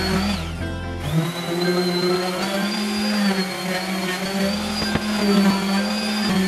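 DeWalt random orbital sander running against an aluminium plate, a steady high motor whine that drops away and comes back about a second in. Background music plays underneath.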